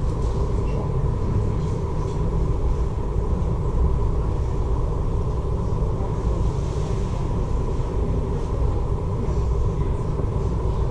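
Steady low rumble of a ferry's engines under way, with a faint steady hum above it.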